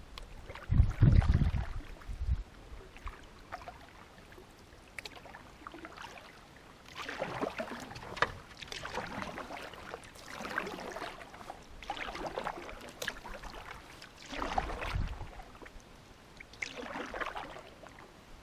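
Canoe paddle strokes in the water, a swish and splash about every two seconds through the second half, with a low rumble of wind on the microphone about a second in.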